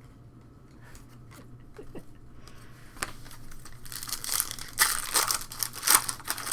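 Trading card pack wrapper being torn open and crinkled. Irregular crackling starts about three seconds in and grows loudest near the end, over a faint steady low hum.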